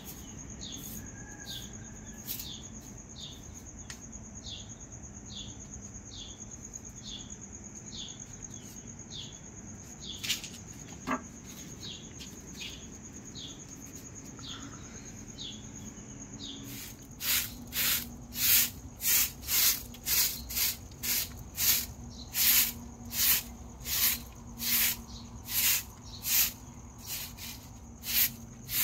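Insects chirping: a steady high buzz with short chirps over it, and about two-thirds of the way in a much louder chirping starts up, about two chirps a second.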